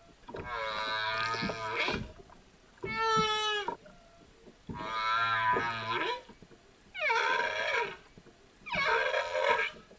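A series of five pitched animal calls, each about a second long, separated by short pauses.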